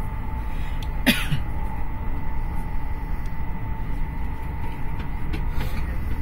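Passenger train running, heard from inside the carriage: a steady low rumble of the wheels on the track with a faint steady whine over it. One short sharp sound breaks in about a second in.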